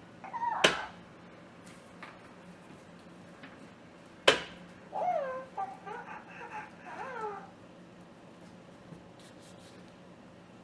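Hatchimals electronic toy hatching from its egg: two sharp knocks, about a second in and again near four seconds, as it pecks at the shell, then a couple of seconds of its electronic, cat-like chirping calls.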